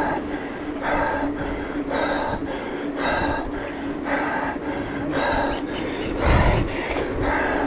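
A mountain-bike racer panting hard in an even rhythm under race effort, about two breaths a second. A steady hum sits underneath, and a low rumble comes in near the end.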